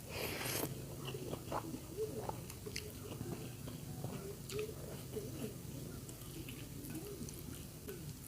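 Close-up eating sounds: a person chewing a mouthful of food with many small wet mouth clicks. A brief loud noisy burst comes in the first half second.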